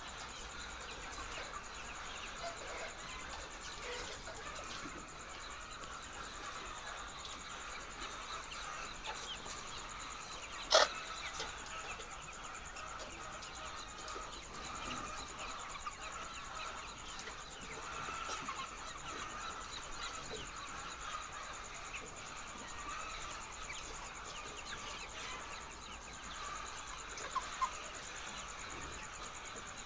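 A flock of laying hens clucking and calling together in a poultry house, a continuous mass of overlapping calls. One sharp click stands out about a third of the way in, with two smaller clicks near the end.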